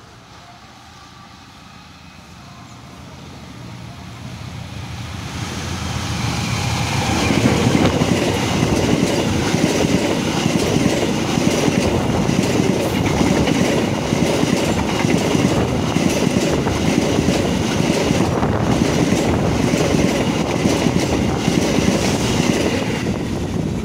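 Kertajaya long-distance passenger train approaching and then passing close by: its rumble grows over the first seven seconds or so into loud, steady noise of coach wheels running on the rails with a rail clatter, easing slightly near the end.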